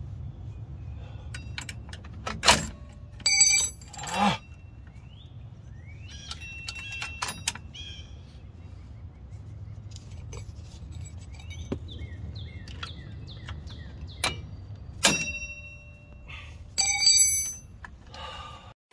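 Steel drum-brake hardware on a 1995 Ford F-150, springs, adjuster cable and brake shoes, clinking as it is fitted by hand. There are several sharp metallic clinks, a few of which ring briefly like a bell, about three seconds in and again near the end, with a few short squeaks in between, over a steady low rumble.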